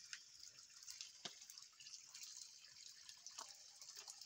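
Faint water running from a spring's outlet pipe, a steady splashing hiss with many small drips and ticks through it.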